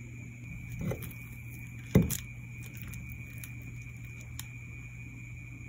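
Handling knocks from a plastic fork and enamel dish: a soft thump about a second in, then a sharper knock about two seconds in, followed by a few light clicks, over a steady hum.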